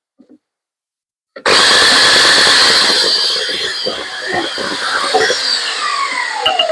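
Electric power saw switched on and cutting wood, cutting in abruptly at full speed; after about four seconds it is switched off and the motor winds down with a falling whine.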